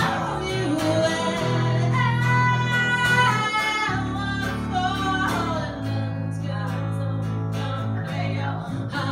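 A woman singing with a strummed acoustic guitar, over long bowed notes on an upright bass that change pitch about four and six seconds in.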